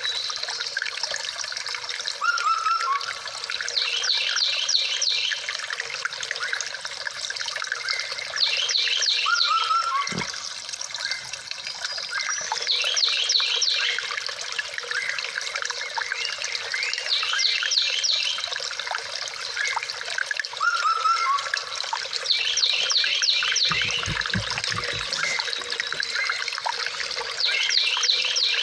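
Lenovo A5 alarm tone played back: a nature-sound recording of steadily trickling water with a short chirping figure that repeats about every four to five seconds. It starts suddenly and has no low end.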